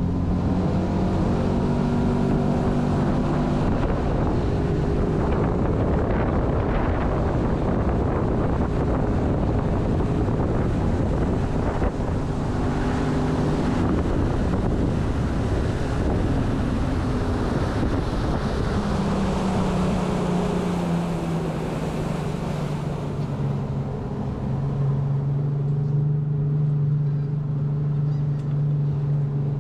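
Boat engine running under way, with wind and water rushing past; about two-thirds of the way through, the engine's pitch glides down as the boat slows, and the rushing eases.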